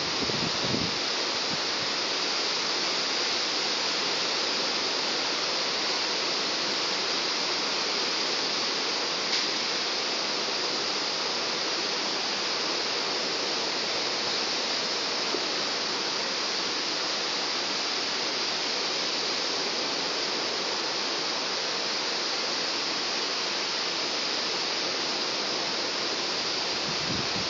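Steady rain falling during a night thunderstorm, an even hiss with no thunder heard.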